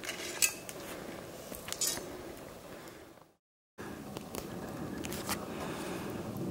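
A few light clinks and clicks over low, steady background noise, broken by a brief dropout to silence a little past the middle at an edit.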